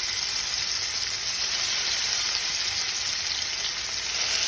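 Raw chicken strips sizzling steadily as they fry in hot olive oil in a pot on high heat.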